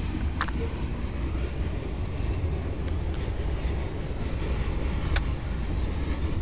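Freight train cars, black tank cars followed by a hopper, rolling steadily past close by: a continuous rumble of steel wheels on rail, with a couple of brief sharp clicks or squeaks from the running gear.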